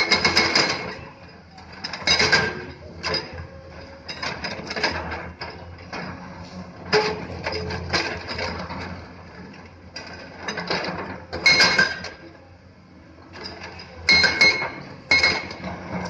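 Komatsu hydraulic excavator bucket scraping and clanking against a pile of stone blocks, a string of irregular metal-on-rock knocks and clinks, with the excavators' diesel engines running steadily underneath.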